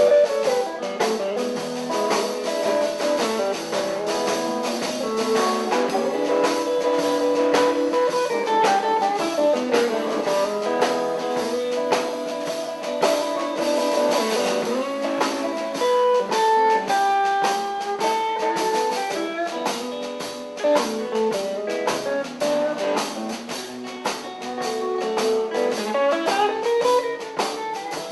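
Live blues band: an electric guitar plays melodic blues lines with bent notes over a drum kit keeping time.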